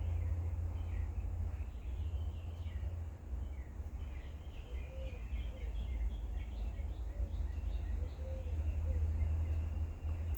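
Birds chirping, many short scattered calls with a few lower arched notes, over a steady low rumble of outdoor background noise.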